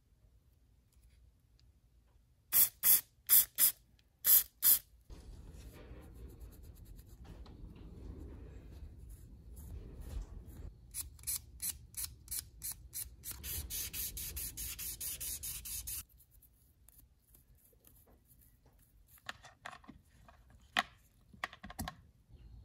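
Six short, sharp hissing spurts in quick succession, then a small brush scrubbing a steel washer: rhythmic strokes that run into a steady scratchy hiss and stop abruptly, followed by a few small clicks near the end.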